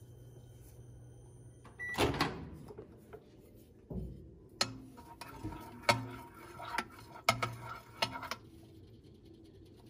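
About two seconds in, a short beep and a loud clunk at the microwave. Then a metal spoon clinks and scrapes against a glass bowl, about eight sharp clinks over four seconds, as it stirs the partly cooked egg mixture.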